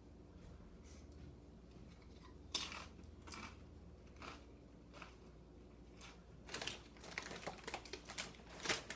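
Tortilla chips crunching as they are bitten and chewed, in short crisp crackles that start a couple of seconds in and come thicker near the end.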